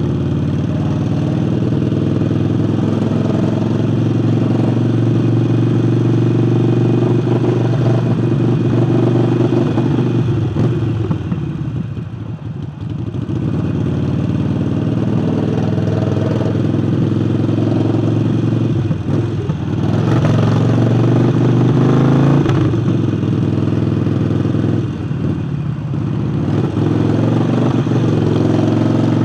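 Harley-Davidson Forty-Eight's V-twin engine running under way, fitted with a new air intake. It backs off briefly twice, about twelve and twenty-five seconds in, and revs up around twenty seconds in.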